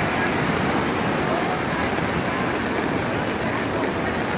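Swollen, muddy floodwater from a cloudburst rushing past, a steady loud rush of water.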